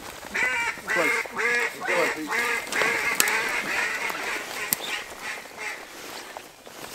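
Mallard-style duck quacking: a series of loud quacks, about two a second, running into quicker, softer chatter that fades out about six seconds in.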